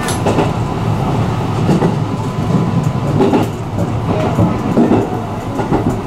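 JR commuter train running along the line, heard from inside the front car behind the driver's cab: a steady rumble of wheels on rails and running gear with a low hum, broken by a few sharp clicks from the wheels on the track.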